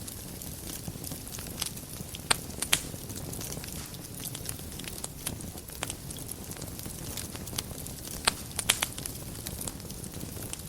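Wood fire burning in a fireplace: a steady low rumble of flames with scattered sharp crackles and pops, the loudest a few small clusters of pops.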